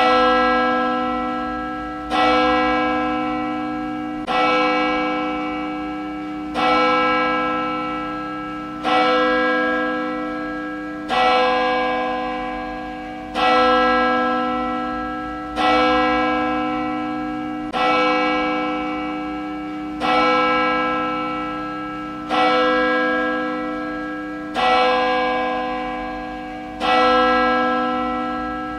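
A church bell tolling slowly and evenly, about one stroke every two seconds. Each stroke rings with the same rich, resonant tone and fades until the next.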